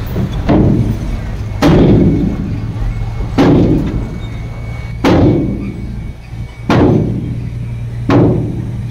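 Heavy diesel machinery running steadily, with six heavy thuds at fairly even spacing, about one every second and a half.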